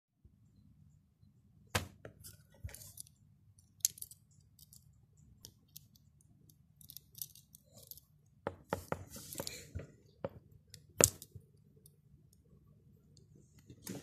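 Red Swiss Army knife being handled: scattered sharp clicks and knocks of its metal tools and plastic scales, with some rustling of fingers. The loudest click comes late.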